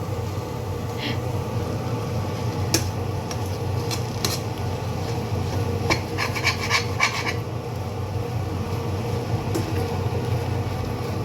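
A metal spatula scraping and clinking against a pan while fried rice with cabbage is stirred, in scattered knocks with a busier spell about six seconds in. A steady low hum runs underneath.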